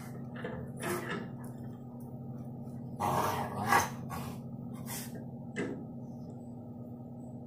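A dog wriggling and rolling on a blanket-covered couch: several bursts of fabric rustling and cushion bumps, the loudest about three seconds in.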